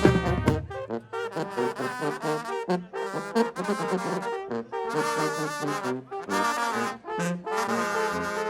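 Mexican banda brass band playing, with trombones and trumpets carrying the tune over sharp percussion strikes. The deep low bass drops out about half a second in.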